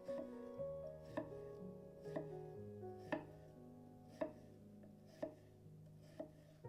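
Knife cutting through food onto a cutting board, a sharp chop about once a second, over soft instrumental background music.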